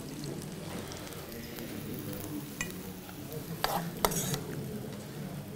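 Mushrooms sizzling in oil in a frying pan while a metal spoon stirs and scrapes them out. A few sharp clinks of the spoon on the pan come about two and a half seconds in and again around four seconds.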